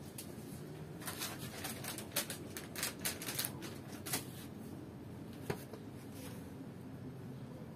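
Cooking oil heating in an electric wok, giving off scattered light crackles and ticks: a cluster of small pops in the first half and a single one later, as the oil starts to get hot.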